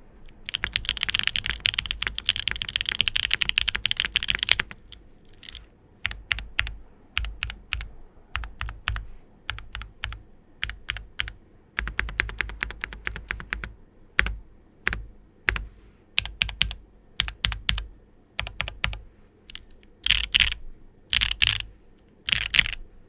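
Mechanical keyboard with stock Gateron Mountain Top linear switches, GMK keycaps on an aluminium flex-cut plate, being typed on. Fast continuous typing for the first few seconds, then slower separate key presses and short runs, with a few quick bursts near the end.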